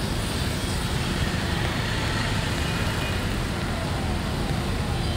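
Steady road traffic noise from a rain-wet city street.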